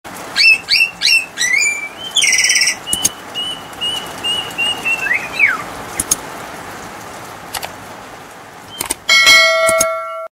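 Subscribe-button intro sound effects. A run of quick falling bird-like chirps and a long wavering whistle is followed by a few sharp clicks, then a loud ringing bell chime near the end that cuts off suddenly.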